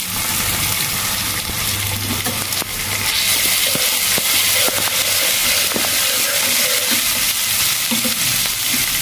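Hot oil sizzling in a frying pan around sliced onions, chilies and freshly added ginger-garlic paste, with a spatula stirring and tapping against the pan in scattered clicks. The sizzle gets louder about three seconds in.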